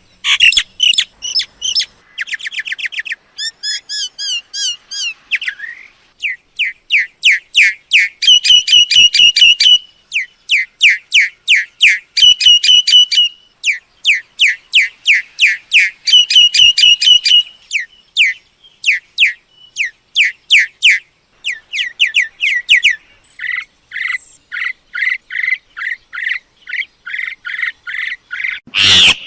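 Myna calling: fast runs of short, sharp whistled notes repeated in bursts of several notes, shifting between higher clear whistles and lower chattering phrases, with a harsher, louder burst at the very end.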